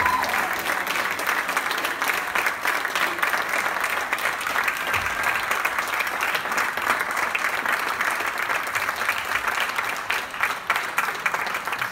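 Theatre audience applauding steadily, a dense crackle of many hands clapping that thins toward scattered claps near the end.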